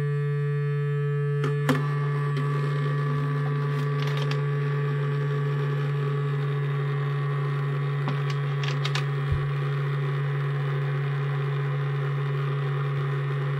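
Vibration-motor glasses and jewellery cleaner buzzing steadily: a low hum with overtones from a small motor spinning offset weights, not an ultrasonic transducer. A sharp click comes just under two seconds in, and a small knock around nine seconds.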